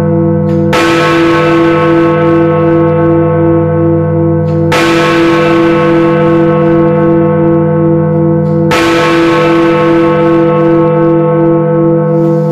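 Big Ben, the Great Bell of the Westminster clock tower, striking the hour: three hammer blows about four seconds apart. Each blow rings on into the next, over a deep hum with one pulsing tone.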